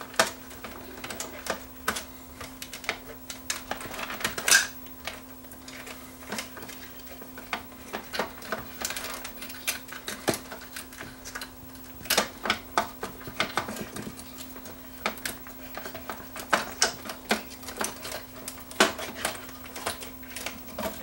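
Irregular small plastic clicks and rattles of wire connectors being unplugged and wiring handled inside an opened CD changer chassis, with a faint steady hum underneath.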